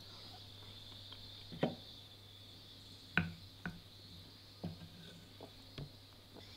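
Wooden spoon clinking and scraping against a stoneware plate while eating curry: a handful of soft, scattered clicks over a steady high-pitched hum.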